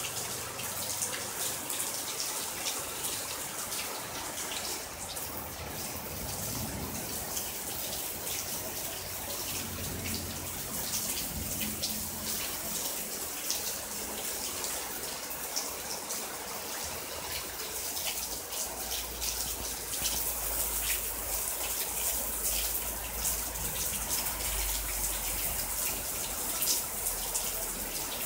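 Heavy rain pouring steadily, a dense hiss full of fine splashing patters. A low rumble comes in about two-thirds of the way through.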